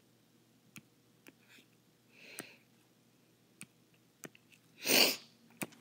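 Scattered light taps of a stylus on a drawing tablet's screen, a few clicks spaced a second or so apart. There is a faint puff of noise about two seconds in and a louder, short noisy burst about five seconds in.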